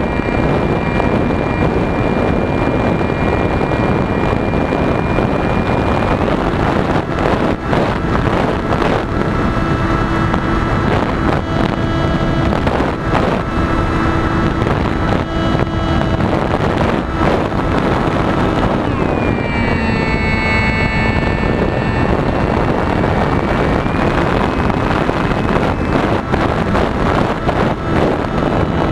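RC plane's motor whining steadily over a loud rush of wind noise. Its pitch drops about 19 seconds in as the throttle eases off, then climbs back a few seconds later.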